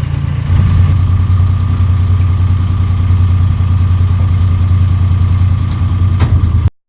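Water taxi's boat engine running steadily, growing louder about half a second in, then cutting off abruptly near the end.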